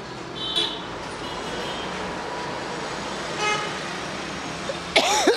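Steady road traffic noise with short vehicle horn toots about half a second in and at about three and a half seconds, then a louder wavering tone near the end.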